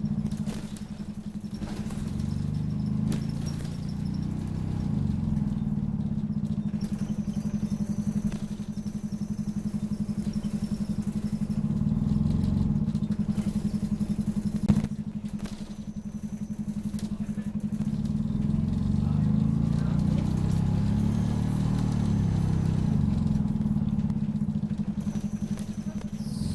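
Optare Solo bus's diesel engine running under way, a steady low drone with a rapid pulse that swells and eases as the bus pulls away and slows. A single sharp click about halfway through.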